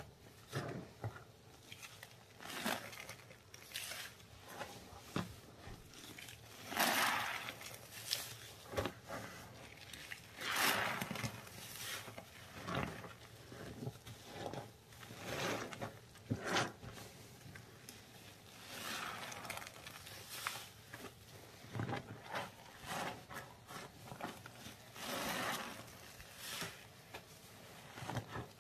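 Gloved hands squeezing and pressing sponges in a bucket of wet, foamy paste: irregular wet squishing, with several longer, louder squelches.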